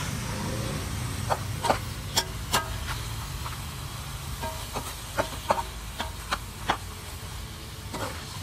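A spatula scraping and clacking against a frying pan while beef and long beans are stir-fried: a dozen or so sharp, irregular knocks over a steady low rumble.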